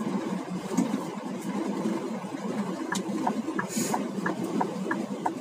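Truck's diesel engine idling, heard inside the cab, with a regular tick-tock of the turn-signal indicator, about three ticks a second, starting about halfway through. A short hiss about two thirds in.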